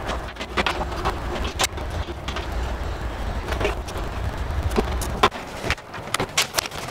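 Scattered clicks and light knocks of network cables and connectors being handled and plugged in at a server cabinet's patch panel, over a steady low rumble that drops away about five seconds in.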